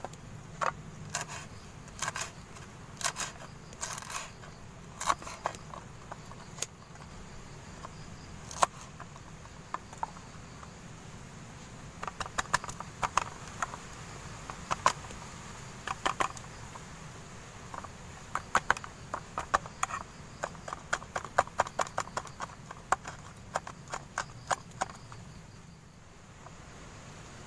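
Folding knife chopping shallots, chilies and tomato on a thin board: sharp taps of the blade against the board, scattered at first, then in quick runs of several taps a second.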